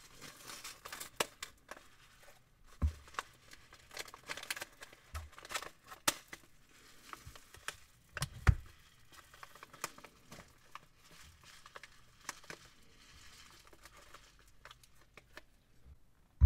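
Thin plastic piping bag crinkling and crackling as it is cut open and squeezed, emptying foam beads into a glass bowl, with a few low knocks.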